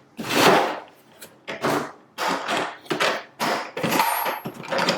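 Hard plastic tool case being handled: a series of short knocks and scrapes, one or two a second.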